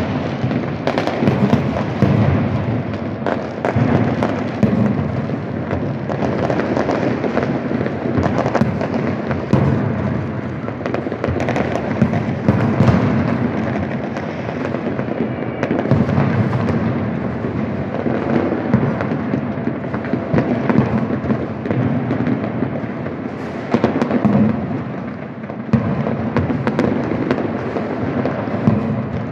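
Many fireworks and firecrackers going off at once in different places across a city: a continuous din of overlapping bangs and crackles with no pause.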